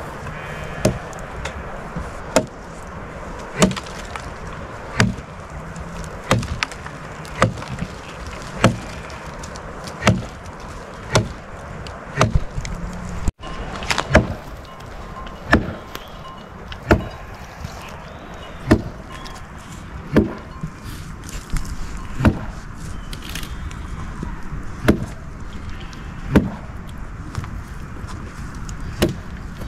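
Firewood being chopped: a blade striking wood in a steady rhythm, about one stroke every second and a half.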